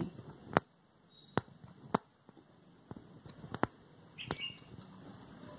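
Aari hook needle punching through cloth stretched taut on an embroidery frame while chain stitches are worked: about five sharp clicks at uneven intervals, with a few fainter ticks between them.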